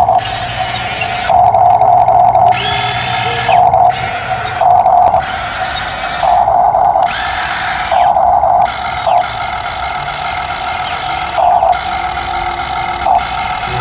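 Small motor whirring in repeated short bursts of about half a second to a second each, stopping and starting many times, like a motorised toy excavator being worked.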